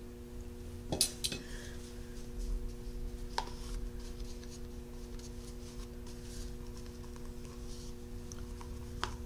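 A few faint clicks and taps as a wax brush and a plastic cup of wax are handled, over a steady low hum.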